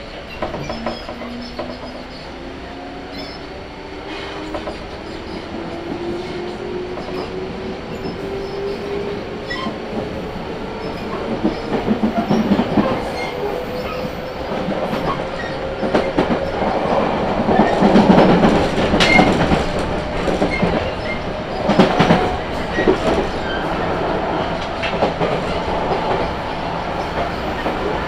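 211-series electric train pulling away: its traction motors give a whine that rises steadily in pitch over about the first fifteen seconds as the train gathers speed. The wheels clack over rail joints, with the loudest clatters about two-thirds of the way in.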